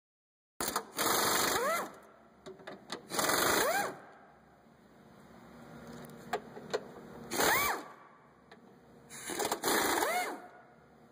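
Snap-on cordless ratchet running in four short bursts, backing out 13 mm bolts. Each burst rises in pitch near its end. A few light clicks fall between the bursts.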